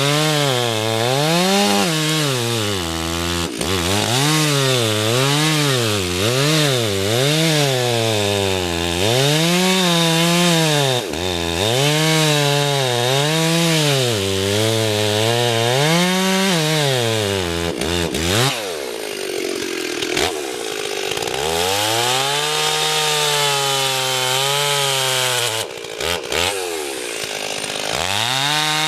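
Stihl chainsaw cutting into a big poplar trunk, the engine pitch repeatedly sagging under load and picking back up. About two-thirds through it drops to a low speed, then revs up and cuts on.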